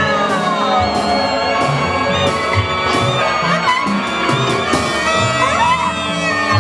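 Live ensemble music: trumpet and saxophone over drum kit, electric guitar, accordion and strings, in a dense mix of held and sliding pitches with scattered drum strokes. A long falling glide comes about a second in.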